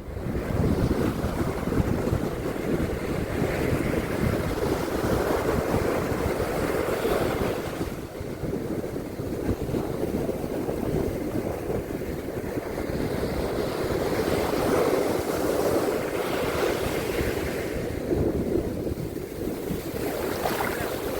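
Surf washing onto a beach, a steady rush that swells and eases every few seconds, with wind buffeting the microphone.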